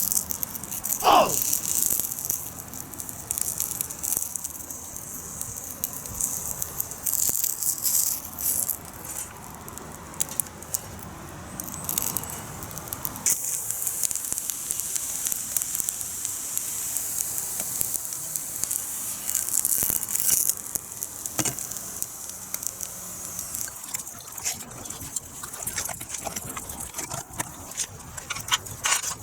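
Wood fire crackling and popping in a secondary-combustion fire pit, with a steady hiss. A brief falling whistle-like tone sounds about a second in.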